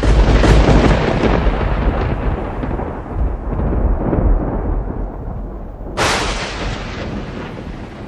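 Thunder: a sudden loud crack that runs into a long, deep rumble, then a second sharp crack about six seconds in that fades back into rumbling.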